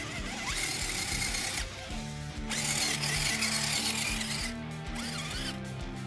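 Background guitar music over two bursts of a 1/10-scale RC rock crawler's electric motor and gears whining as it climbs through dead leaves, one about half a second in and a longer one from about two and a half to four and a half seconds in.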